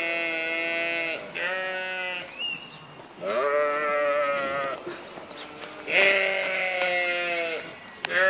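Sheep bleating again and again: four long, drawn-out bleats with short gaps between them, a shorter one among them, and a fifth starting right at the end.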